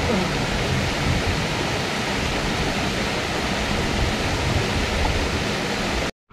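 Small waterfall rushing steadily over a rock ledge into a pool, an even wash of water noise that cuts off suddenly near the end.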